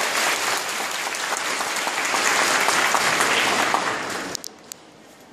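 Audience applauding, a dense spread of hand claps that dies away about four seconds in, leaving a few last single claps.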